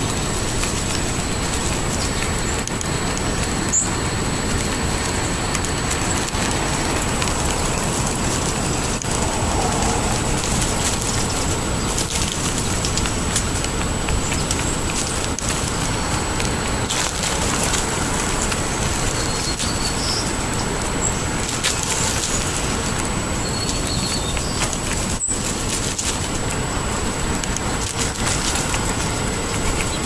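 A steady rushing noise with faint crackling taps of wild turkeys pecking birdseed off pavement, and a few faint bird chirps.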